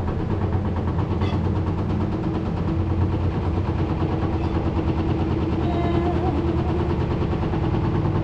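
Steady low mechanical hum of a running motor, with a few faint clinks as rice is served from a frying pan onto a plate.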